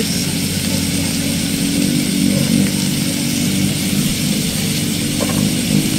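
Pork pieces sizzling as they fry in a pan on a portable gas stove, a steady hiss, over a continuous low engine-like drone.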